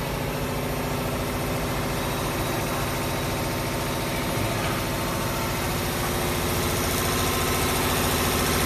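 Six-spindle CNC needle winding machine running, winding brushless motor stators: a steady mechanical hum with a fast, even pulsing, growing slightly louder toward the end.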